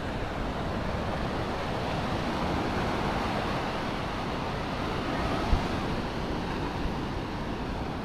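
Ocean surf breaking and washing up a sandy beach: a steady, even rush of waves. A single brief knock about five and a half seconds in.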